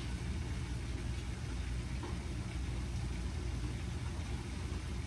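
Steady low rumble with a light hiss from the stovetop, where ground beef and sausage are cooking in a skillet.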